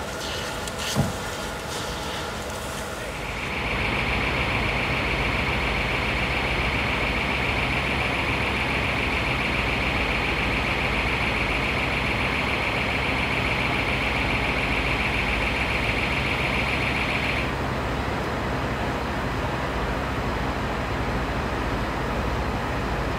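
Fire engine's diesel engine running steadily, a low even hum. A high, steady hiss joins about three seconds in and cuts off suddenly about seventeen seconds in.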